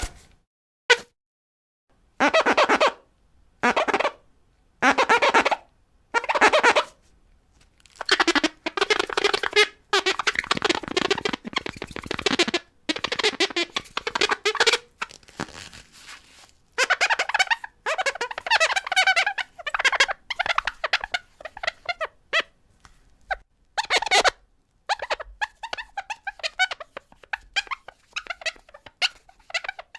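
A run of swipe sound effects, one after another: two short clicks, then four separate whooshes about a second apart, then longer, denser sweeps. Near the end come quick fluttering, chirpy swipes.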